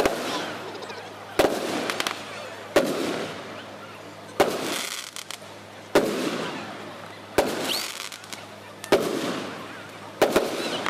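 Aerial firework shells bursting, a sharp bang roughly every second and a half, each followed by a fading crackle and rumble. Near the end two bangs come close together.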